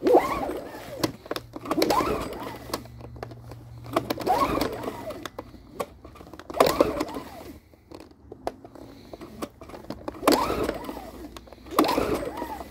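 Recoil pull-starter of a Yardworks 950W inverter generator's small four-stroke engine, yanked six times: each pull is a short rattling whirr as the cord runs out and the engine turns over. The engine does not catch.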